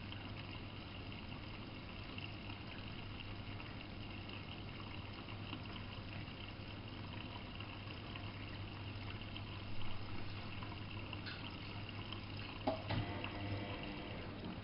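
Miele Novo Super W933 washing machine taking in water: a steady rush of water with a constant low hum. A few light knocks near the end.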